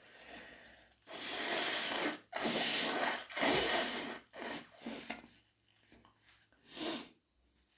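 A person blowing a runny, hayfever-blocked nose into a tissue: three long, wet blows one after another, then a few short sniffs and snorts.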